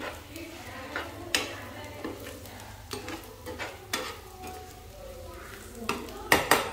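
A metal spoon stirring dried fish in a sizzling sweet-and-sour sauce in a frying pan, scraping and clicking against the pan at irregular intervals over a steady low hum. A quick cluster of louder clicks comes near the end.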